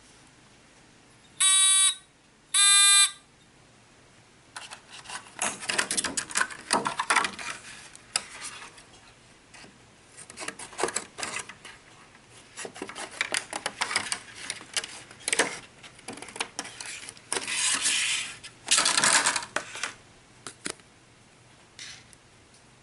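A small electronic buzzer on a 3 V transistor rain-alarm circuit beeps twice briefly as the resistor lead is touched to the BC517 transistor's base, showing that the circuit works. Then scissors snip and crinkle stiff clear plastic packaging in irregular bursts.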